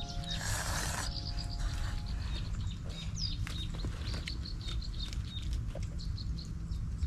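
Small birds chirping over and over in the background, with a steady low rumble and a few light clicks. A short held musical chord ends about two seconds in.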